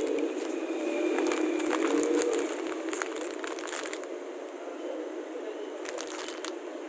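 Crinkling and crackling: a dense run of small crackles about a second in, fading out by four seconds, and a short burst again near the end, over a steady low hum.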